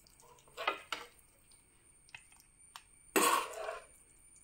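Metal serving spoon knocking and scraping in a steel kadai while serving chicken: two clinks about a second in, a few light ticks, then a louder scrape a little after three seconds.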